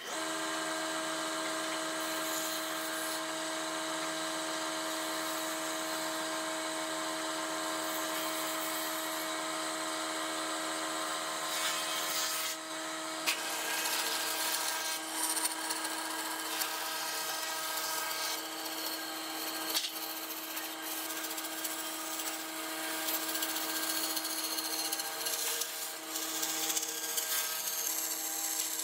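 An electric power tool switches on and runs with a steady hum. From about halfway through, its pitch wavers and there are scraping sounds and a few sharp knocks as it works into wood.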